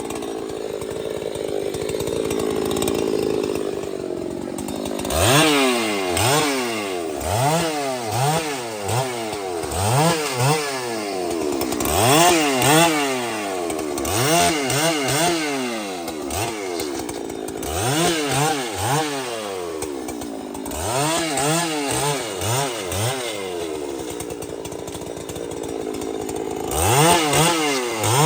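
Large two-stroke chainsaw running steadily, then from about five seconds in revved up and down over and over, roughly once a second, as if being throttled while cutting.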